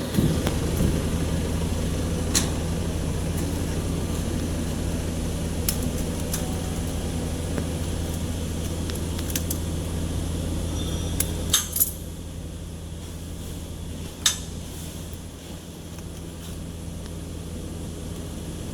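Occasional sharp metallic clinks and knocks, steel parts and tools being handled during machine installation, over a steady low machine hum that drops away about twelve seconds in.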